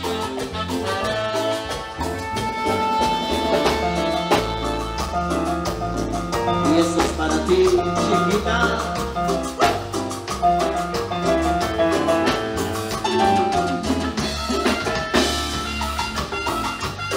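Tropical Latin dance band playing an instrumental passage: a pulsing bass and steady percussion under melodic instrument lines, with no singing.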